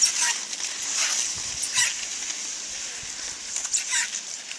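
Cross-country skis hissing along a groomed snow track, with the scrape and crunch of skis and poles biting into the snow at a few strokes, twice in quick succession near the end.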